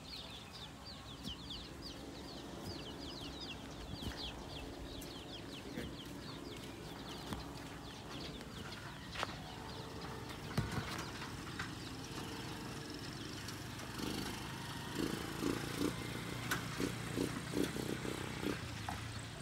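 Free-range chickens: quick, high, falling peeps for the first several seconds, then a run of short low clucks starting about three-quarters of the way through.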